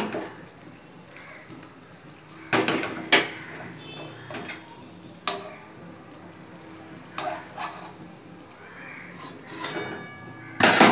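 A metal spoon clinking and scraping against a kadai as soft kalo jam balls are turned in oil, a handful of sharp clinks spread out, the loudest near the end. Under them is a faint steady sizzle of the sweets frying gently in refined oil over a low flame.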